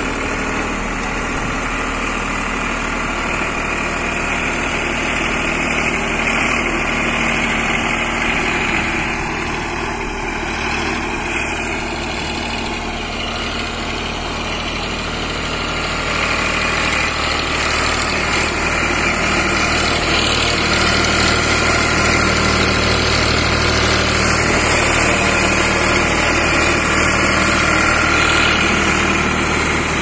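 Eicher tractor's diesel engine running steadily, a little louder from about halfway through.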